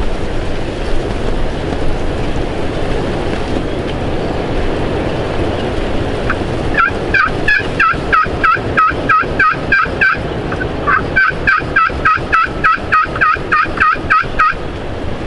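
Wind rushing on the microphone, then two long runs of evenly spaced turkey yelps, about four a second, with a short break between the runs.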